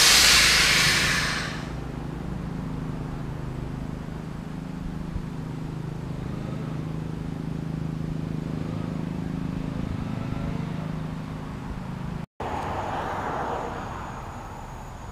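A 1987 Suburban's V8 engine idling with a steady low hum, after a loud hiss over the first second and a half. The sound cuts out for an instant about twelve seconds in.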